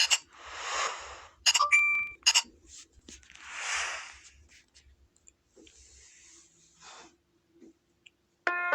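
Two long breaths close to the microphone, about a second each, with sharp clicks and a brief electronic beep between them. Plucked-string music starts near the end.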